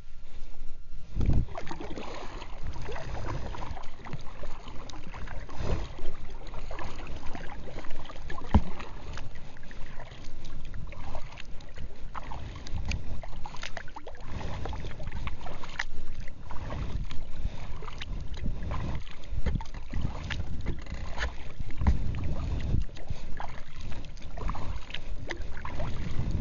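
Sea kayak being paddled through calm water: the paddle blades dip and pull in an uneven rhythm of splashes and drips, with water washing along the hull.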